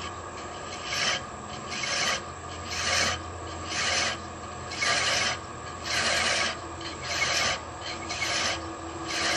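Hand thread-chasing tool taking light passes on a spinning wooden threaded insert on a wood lathe: a dry scraping rasp about once a second, over the lathe's steady hum.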